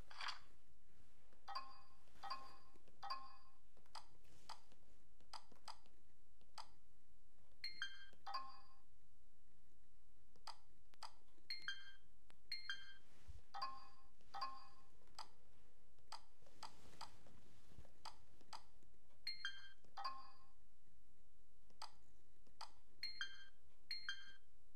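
Handheld RC transmitter beeping as its buttons and scroll wheel are worked through the menus: short electronic beeps, single or in quick twos and threes at irregular intervals, with faint clicks between them.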